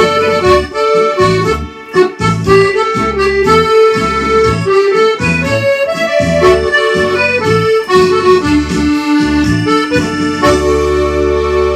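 Accordion playing a melody over a regular bass-and-chord accompaniment, then settling on a long held chord near the end.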